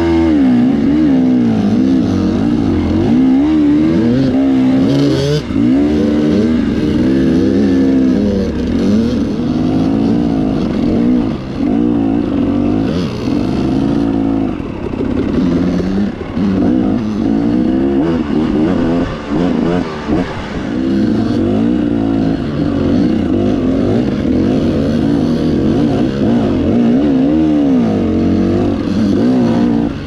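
Dirt bike engine revving up and down, its pitch rising and falling again and again as the rider works the throttle over rocky ground.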